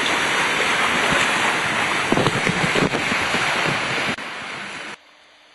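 Wind buffeting the microphone and water rushing and splashing along a sailing trimaran's hull, with a few heavier splashes around the middle. It cuts off suddenly near the end.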